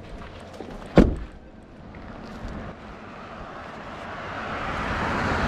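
A pickup truck's door slams shut about a second in, one sharp bang. Then a rushing road noise swells steadily toward the end.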